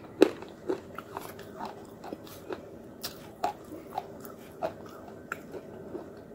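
Close-up crunching and chewing as a thin, brittle brown shard is bitten: sharp crackling crunches about twice a second, the loudest just after the start.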